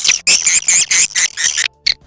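Swiftlet call recording, the kind played through tweeters to lure swiftlets into a nesting house: a dense run of rapid, high twittering chirps that breaks off about three-quarters of the way through.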